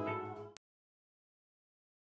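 Gospel worship group's voices and keyboard fading out over about half a second, cut off by a click at an edit, then dead silence.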